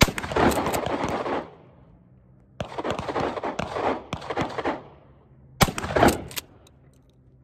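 Three 12-gauge 00 buckshot shots from a Mossberg 590A1 short-barreled pump-action shotgun, at the start, about two and a half seconds in and near the end. Each shot is followed by a ringing tail and the pump being worked to chamber the next shell.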